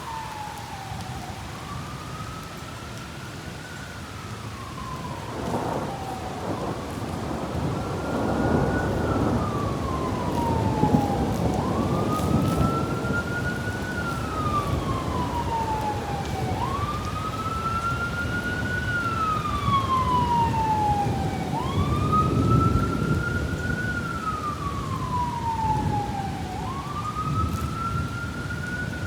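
A siren wailing, rising and falling in pitch about once every five seconds. Beneath it are low rumbles of thunder, strongest twice, with steady rain noise.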